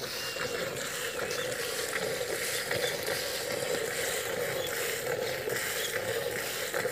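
Milk squirting by hand from a cow's teats into a steel bucket of frothy milk, a steady hissing splash.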